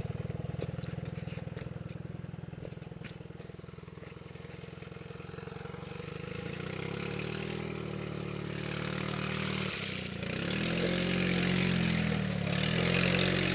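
Gas E-Z-GO golf cart engine pulling at low speed over rocky, muddy trail, revving up about six seconds in, dropping off briefly near ten seconds, then revving and wavering again.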